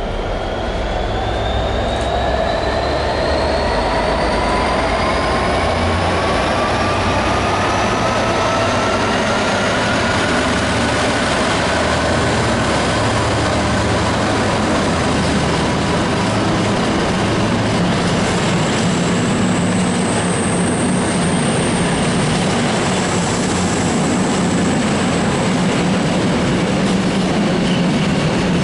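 Freightliner Class 66 diesel-electric locomotive, with its two-stroke EMD V12, runs through with a deep engine rumble and a whine that rises in pitch as it comes past. A long train of container wagons follows, running steadily, with a thin high wheel squeal for a few seconds about two-thirds of the way through.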